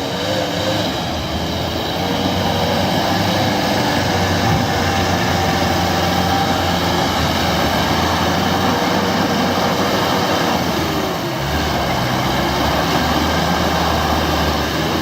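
A vehicle's engine running steadily under load, with road noise, easing briefly about eleven seconds in.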